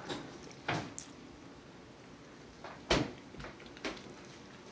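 Close-up eating noises of people biting and chewing pork spare ribs off the bone: a few short, sharp mouth smacks and clicks, the loudest about three seconds in.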